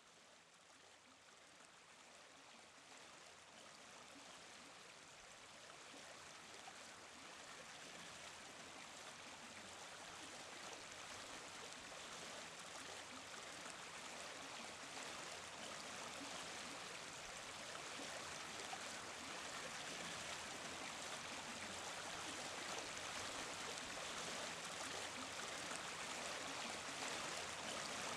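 Running water of a stream, a steady rush that fades up slowly from faint and grows louder throughout.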